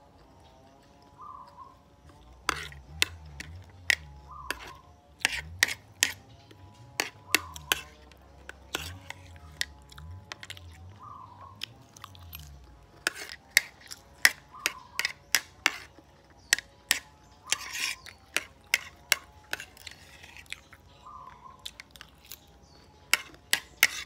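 Close-up eating sounds: a metal spoon clicking and scraping against a ceramic plate, with chewing, in many sharp irregular clicks that begin a couple of seconds in. Soft background music with a repeating melody runs underneath.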